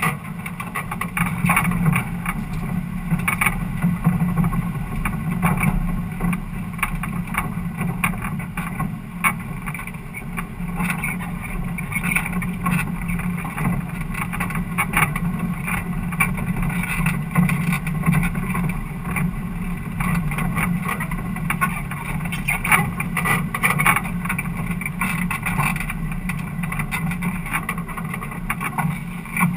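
Ford Cortina speedway car's engine running at steady, even revs, heard from inside the stripped-out cabin, with constant rattles and knocks from the car body over the dirt.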